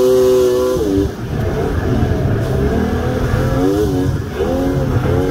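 Small vehicle's engine revving and easing off several times. Its pitch climbs and holds high for about a second, drops, then rises and falls again twice more.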